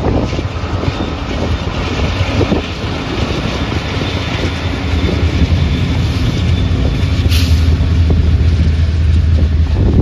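Union Pacific mixed freight train rolling past close by: the last of its diesel locomotives go by, then a string of freight cars, with a steady low rumble and wheels clicking over the rail joints. A short hiss comes about seven seconds in.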